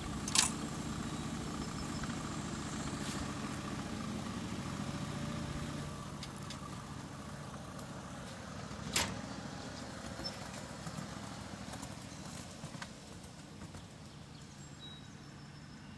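Small engine of a ride-on 1.5-inch scale model train running steadily, then fading as the train moves away. A sharp knock sounds just after the start and another about nine seconds in.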